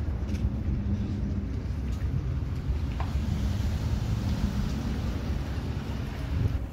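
Steady low outdoor rumble with a faint hum in it and a light hiss above.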